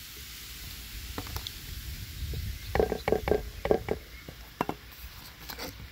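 Baking soda and vinegar fizzing in a metal can, a faint steady hiss, with a short run of knocks and clatter about three seconds in.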